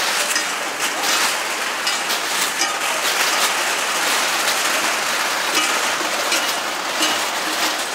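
Long strings of tin cans dragged over an asphalt road: a dense, continuous clattering and scraping rattle of metal on tarmac.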